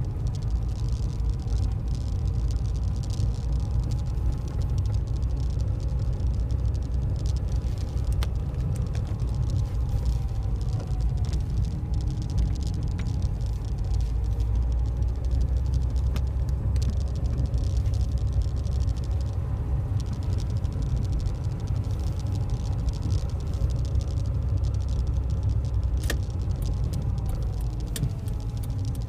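A Ford Ka heard from inside its cabin while driving slowly: a steady low rumble of engine and road noise. The engine note rises and falls gently with the revs, and there are a few light clicks.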